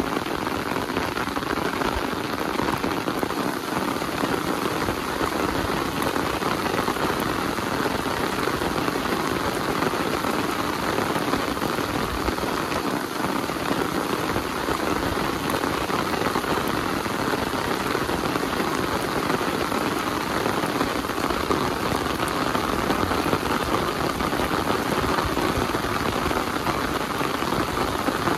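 Heavy rain falling steadily, a dense, even patter with no change in strength.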